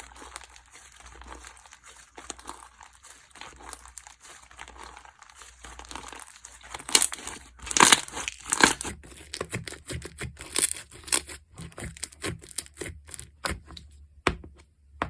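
Slime being worked by hand: soft crinkly, tearing squelches at first. From about seven seconds in comes a run of sharp, rapid pops and clicks as the slime is pressed and stretched.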